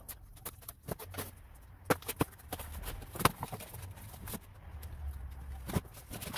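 A cardboard box being handled and a rolled mat pulled out of it: irregular rustling, scraping and sharp taps, the loudest about three seconds in.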